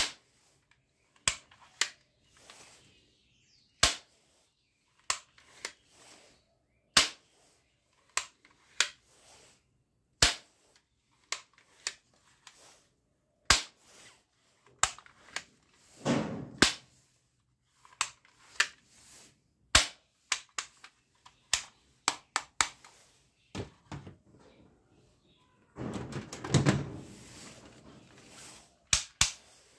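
Plastic toy guns clicking and clacking as they are handled and worked: sharp single clicks roughly every second, unevenly spaced, with two longer stretches of plastic handling noise about halfway through and near the end.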